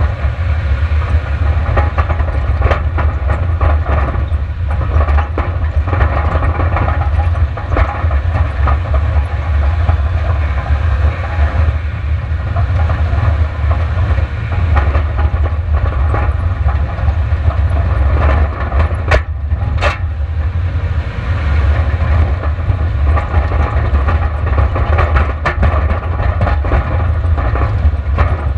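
Onboard sound of a long-travel Subaru Outback driving fast down a gravel track: a steady low rumble of road and wind, with constant rattles and knocks from gravel and the suspension, and two sharper knocks about two-thirds of the way through.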